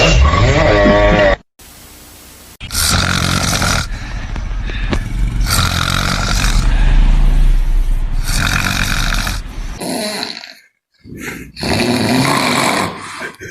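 A person snoring loudly, a run of snores each lasting about a second with breaths between, starting about three seconds in and pausing briefly near the end.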